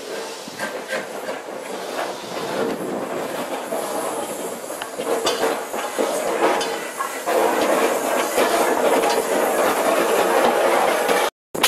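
LNER K4 class steam locomotive 61994 'The Great Marquess' running slowly past at close range, with steam hissing and scattered clanks and clicks from its wheels and motion on the rails. It grows louder about seven seconds in as it comes alongside, and the sound cuts out for a moment near the end.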